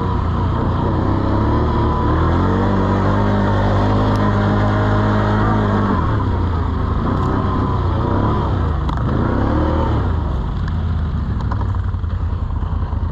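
ATV (quad) engine running under throttle while riding through snow: it holds a steady pitch for a few seconds, drops off about six seconds in, then revs up and down again.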